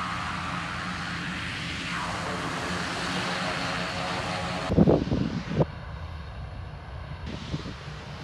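Basler BT-67's two Pratt & Whitney Canada PT6A-67R turboprop engines running steadily at takeoff power, with a high turbine whine. A little over halfway through the sound changes abruptly to a fainter, distant aircraft engine with wind gusting on the microphone.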